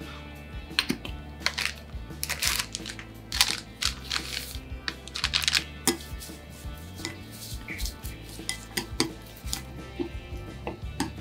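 Chopsticks clicking and scraping against a glass mixing bowl while tossing shredded carrot with mayonnaise. The taps come quickly and irregularly and are busiest in the middle few seconds.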